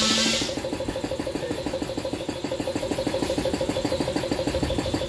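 A machine running steadily in the background, with an even pulse about six times a second. A short hiss-like burst comes right at the start.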